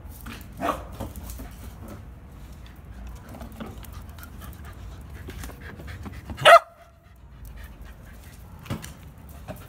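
Dogs panting as they play with balls, with one short bark about six and a half seconds in.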